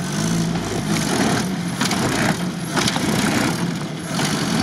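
Off-road 4x4's engine running with revs rising and falling as the stuck vehicle tries to drive out of the snow, with several surges of rough noise from the wheels and snow.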